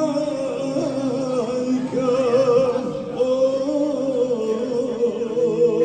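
A man sings live into a microphone over instrumental accompaniment. He holds long notes in a wavering, ornamented melody.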